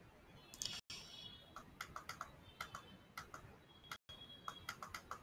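Faint typing on a computer keyboard: a run of irregular key taps.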